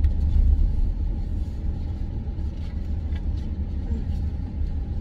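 A moving car heard from inside its cabin: a steady low rumble of road and engine noise.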